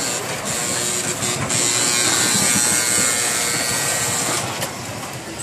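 Small kiddie-ride car running along its guide track: a steady buzzing hum with hiss, louder in the middle and easing off near the end.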